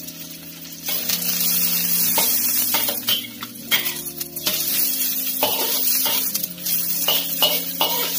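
Petai beans, galangal shoots and chillies sizzling in hot oil in a steel wok, growing louder about a second in, while a metal spatula scrapes and knocks against the wok in quick irregular strokes.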